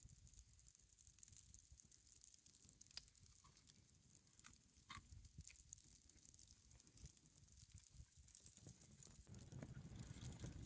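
Near silence: a soft hiss with faint, scattered small ticks and crackles.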